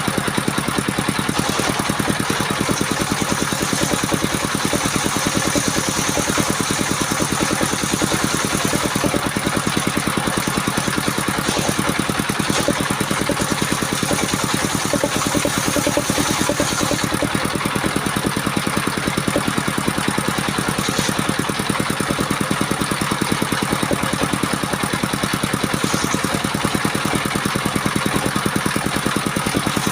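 A small engine running steadily at constant speed, powering a homemade portable circular saw. A higher hiss comes and goes over it.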